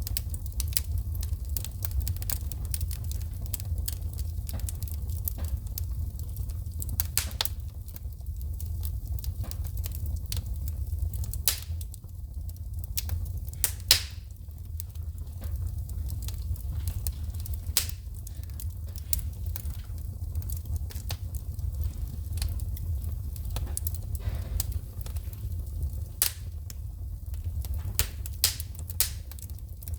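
Wood fire crackling in a fireplace, with frequent irregular sharp pops of shooting sparks, the loudest about halfway through, over a low steady rumble.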